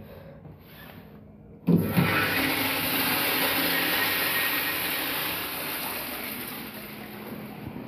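Zurn wall urinal flushed by its manual flushometer valve: a sudden rush of water about two seconds in, loud at first and then slowly fading.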